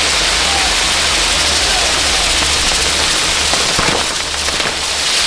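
Ground fireworks spraying with a loud, steady hiss, with a few sharp pops about four seconds in.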